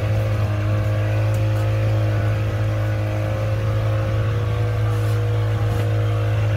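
Tourist boat's engine running steadily under way, a loud, even low drone with a few steady higher tones over it.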